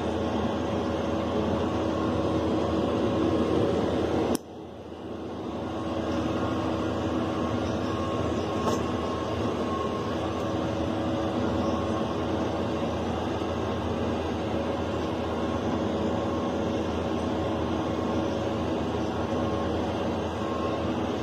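Tractor engine and haybine mower-conditioner running steadily while cutting wheat, heard from inside the tractor cab. About four seconds in the sound drops out abruptly and builds back up over a second or two.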